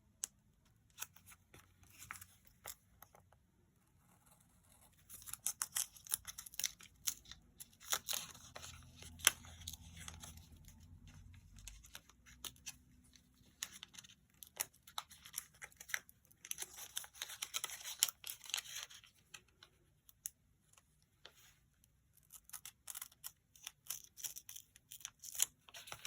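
Decorative paper wrapping being cut and torn open by hand, in several spells of crinkling and ripping, with scattered small clicks and taps from handling the package.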